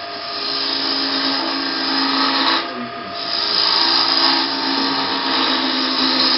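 A gouge cutting into a spinning wooden bowl on a wood lathe: a steady rushing hiss of wood being cut away as shavings fly. The cut eases off briefly about three seconds in, then bites again.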